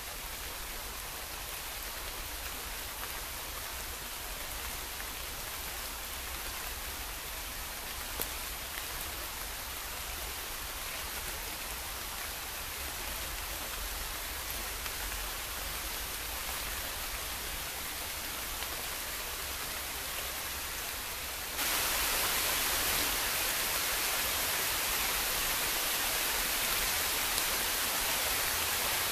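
Steady hiss of a heavy downpour, which gets abruptly louder about twenty seconds in.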